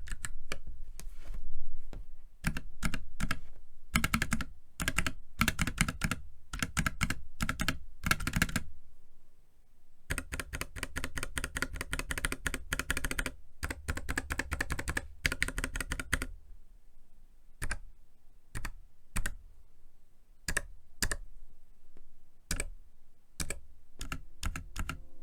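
Typing on a Keychron K3 Pro low-profile mechanical keyboard fitted with Gateron low-profile 2.0 banana switches. Fast runs of keystrokes with a brief pause in between give way, about two-thirds of the way through, to slower, separate key presses.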